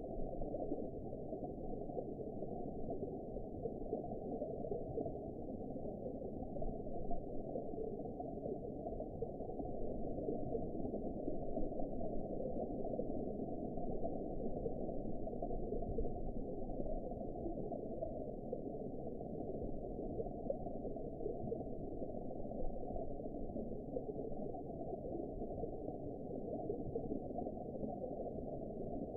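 Underwater ambience: a steady, muffled wash and gurgle of water, deep and dull with nothing high-pitched in it, swelling slightly now and then.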